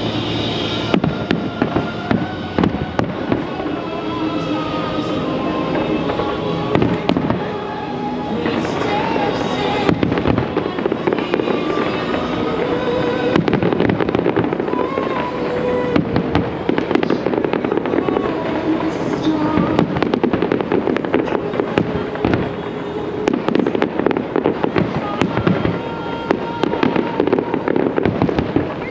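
Large fireworks display: a dense, continuous run of sharp bangs and crackles from bursting shells, with music playing underneath.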